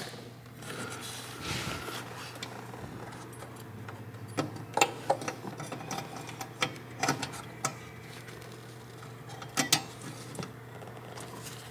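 Light clicks and rattles of hands working behind a car's headlamp housing, seating a new 9003 halogen bulb and its metal wire retaining hoop. The clicks come scattered through the middle and latter part over a steady low hum.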